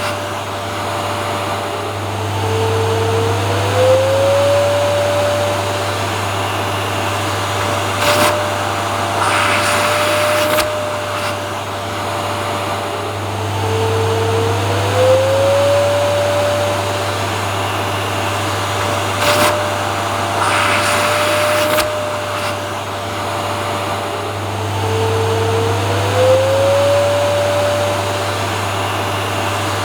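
Vacuum cleaner motor running continuously with a steady rushing whine. About every eleven seconds its pitch dips briefly and slides back up, and now and then there is a short burst of louder hiss.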